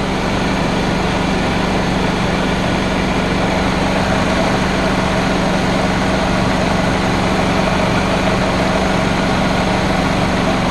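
Mercedes C230's 1.8 supercharged four-cylinder idling steadily with the air conditioning running during a refrigerant recharge: an even, unbroken hum, with a faint higher tone joining about a third of the way in.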